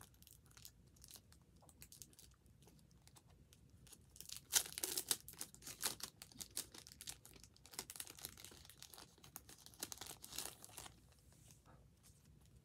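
A thin clear plastic wrapper crinkling and tearing as it is worked open by hand, a run of crackles that is loudest about a third of the way in and flares up again twice later.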